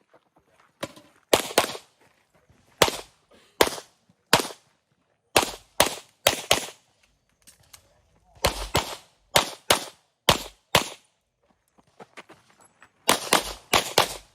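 Handgun shots fired during an IPSC practical shooting stage: about twenty sharp cracks, mostly in quick pairs (double taps), with short pauses between strings as the shooter moves between target arrays.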